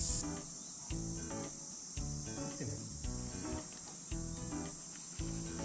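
Steady high-pitched insect drone, like a summer insect chorus, under background music with a bass line and pitched notes in short phrases about once a second.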